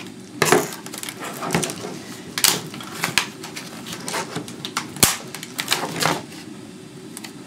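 Plastic laptop casing clicking and clacking as it is handled, turned over and pried at: irregular knocks about once a second, with a sharp snap about five seconds in.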